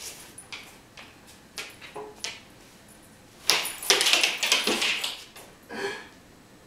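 A Rhodesian ridgeback's claws tapping on a wooden parquet floor, a few scattered taps at first, then a loud burst of skittering and scrabbling about halfway through as the dog lunges and spins away, and one shorter scrabble near the end.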